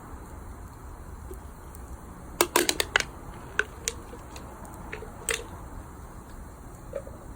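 Wood fire crackling over a steady low hiss, with a quick cluster of sharp pops about a third of the way in and a few single pops after.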